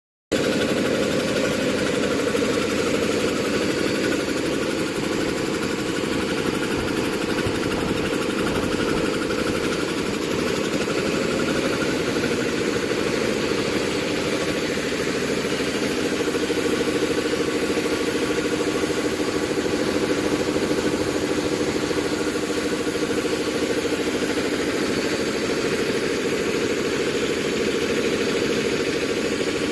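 An air compressor head (pump) running steadily under test, a constant machine note with an even hiss over it.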